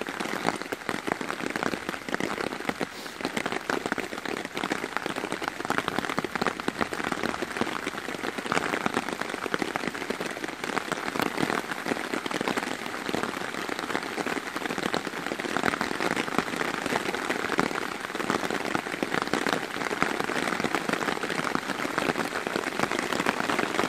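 Heavy rain falling steadily on a nylon tarp overhead: a dense, even patter of drops with no letup, a proper downpour.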